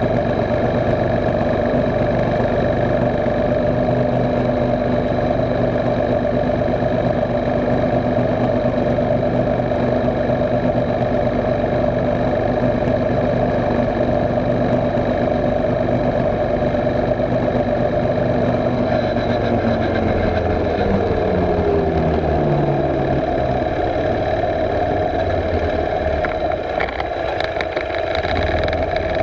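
Mini bike's small engine running steadily at cruising speed. About two-thirds in, its pitch falls as the revs drop and the bike slows.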